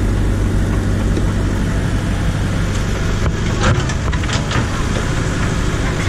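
Backhoe loader engine idling steadily, with a few short knocks about halfway through.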